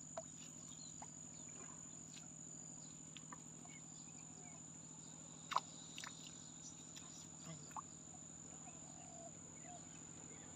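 Steady high-pitched insect chorus of crickets with a low steady hum beneath it, and a few faint scattered clicks and chirps, the sharpest about five and a half seconds in.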